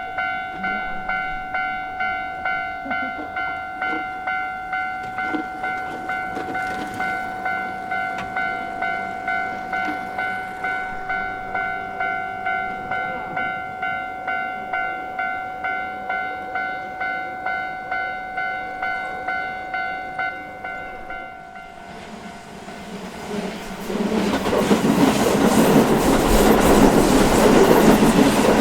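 Japanese level-crossing warning bell ringing in an even pulse about twice a second, which stops about three-quarters of the way through. A Keio Line train then runs through the crossing, loud wheel and rail noise with clickety-clack.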